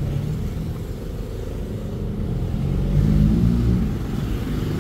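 Low, steady rumble of a motor vehicle engine running, swelling slightly about three seconds in.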